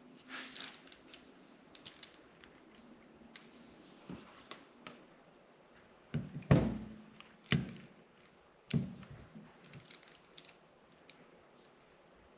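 Stripping and crimping terminals onto 12-gauge wire with hand tools: faint scattered clicks and snips, with three louder clacks in the second half.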